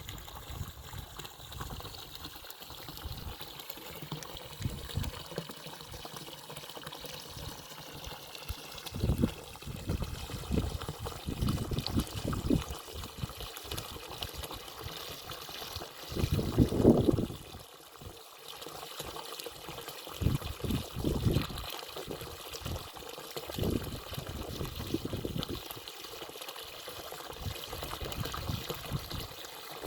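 Small stream of water trickling and gurgling steadily, with irregular low gurgles and splashes; the loudest surge comes a little over halfway through.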